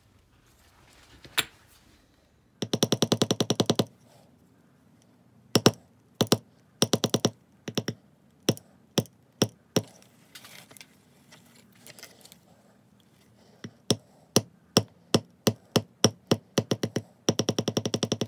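Metal leather stamping tool being struck with a mallet on tooling leather laid on a stone slab. First a quick run of taps, then single taps about half a second apart, then another quick run near the end.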